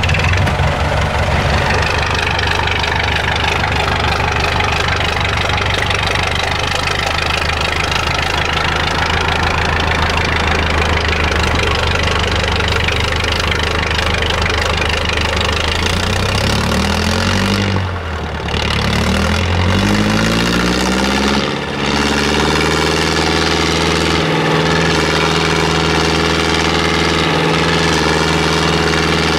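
Diesel engine of a 4x4 trial truck running under load as it crawls up a steep slope. Its pitch shifts up and down for several seconds past the middle, dipping in level twice, then settles into a steady, slightly higher note.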